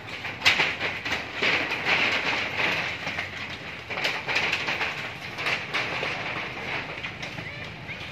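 Corrugated metal roof sheets rattling and banging under monkeys running and scrambling across them: a rapid jumble of knocks that dies down over the last couple of seconds.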